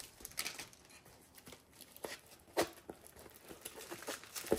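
Soft rustling and crinkling of a diamond painting kit's plastic packaging being handled. There are sharper clicks about two and a half seconds in and again near the end.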